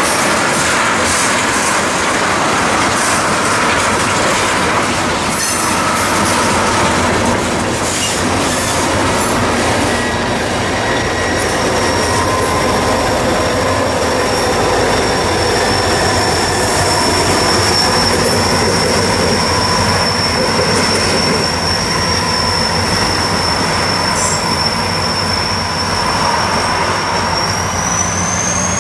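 A freight train of tank cars rolls past, shoved by a pair of EMD SD40-2 diesel locomotives. Wheels click over rail joints in the first several seconds. From about halfway through, a steady high-pitched wheel squeal sets in and rises in pitch near the end.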